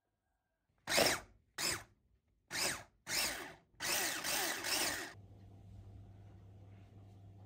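Electric hand mixer beating butter and sugar in a bowl, switched on in about five short whirring bursts over four seconds, the last one longest. After that only a faint steady low hum remains.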